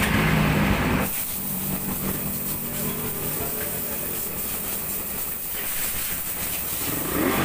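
Suzuki Raider 150's single-cylinder four-stroke engine idling, then switched off about a second in, leaving a hiss. Near the end it is started again with a rising rev, a test run with the newly fitted manual cam-chain tensioner.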